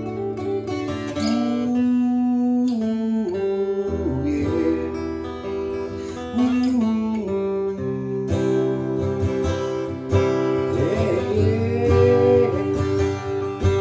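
Acoustic guitar, an Epiphone Masterbilt DR400 dreadnought, strummed and picked through a song's chord intro.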